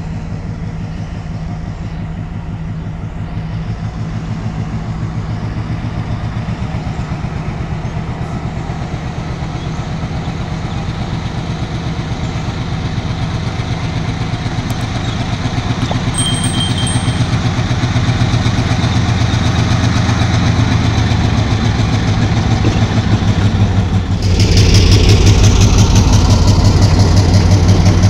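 Diesel engine of a Sri Lanka Railways Class M6 locomotive running with a steady low throb that slowly grows louder. About 24 seconds in it turns suddenly louder and harsher.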